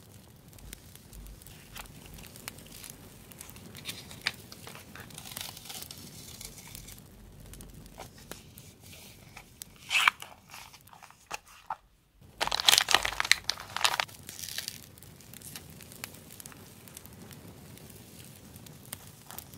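Paper sticker sheets and stationery rustling and crinkling as they are handled and shuffled, with a short sharp crackle about ten seconds in and a louder stretch of crinkling from about twelve seconds in.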